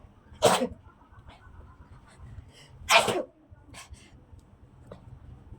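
A person sneezing twice, about two and a half seconds apart, each a short loud burst. This is allergic sneezing, which the sneezer puts down to a cold and dust allergy.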